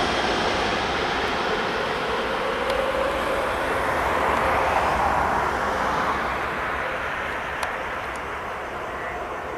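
Jet airliner's engines rushing as the aircraft passes and moves away, the steady roar slowly fading.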